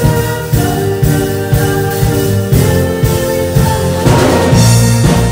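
A live worship band playing a song: electric guitars, keyboard and drum kit under a woman's sung lead vocal, with a cymbal wash about four seconds in.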